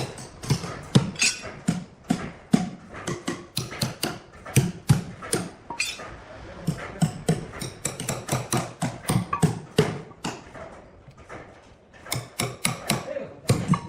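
Repeated sharp knocks and clacks, irregular, about two to four a second, like timber being struck or handled.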